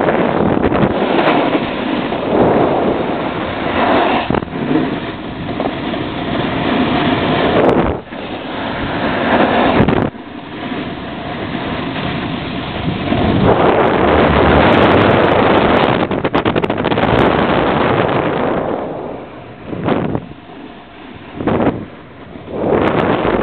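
Snowboard sliding and scraping over snow, a loud rushing noise that swells and fades with each turn, mixed with wind on the microphone; it eases off briefly a few times near the end. The run is noisy, which the rider puts down to the warm weather.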